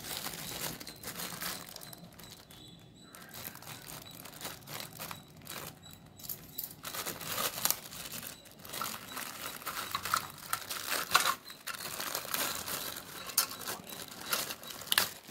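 Clear plastic packaging crinkling and crackling irregularly as it is handled and pulled open from around tin toy boats.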